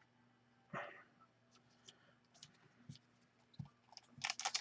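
Faint handling of trading cards: a soft rustle about a second in, a few light clicks, then a quick run of card flicks and taps near the end.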